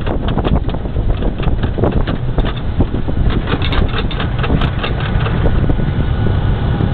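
Wind buffeting the microphone in the open turret of a moving MaxxPro MRAP, over the steady rumble of its diesel engine and tyres on the road. Many short irregular rattles and clicks run through it.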